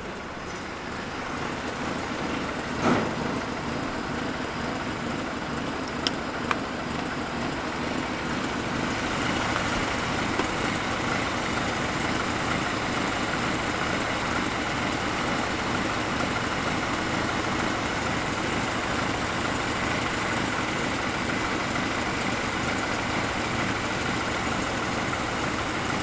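Pickup truck engine idling steadily after sitting unused for a long while. A sharp knock sounds about three seconds in and two short clicks about six seconds in.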